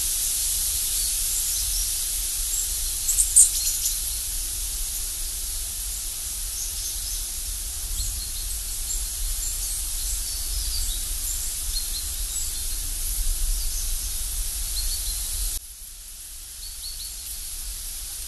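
Outdoor woodland ambience: a steady hiss with a low rumble underneath and scattered high chirps, the loudest a short chirp about three seconds in. The whole sound drops quieter near the end.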